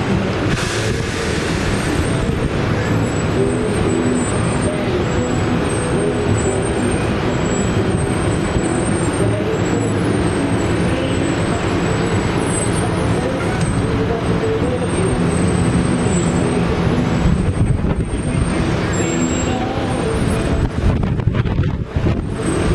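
Steady wind rumble on the microphone of an open chairlift, over a loud outdoor fairground din of distant voices and machinery hum.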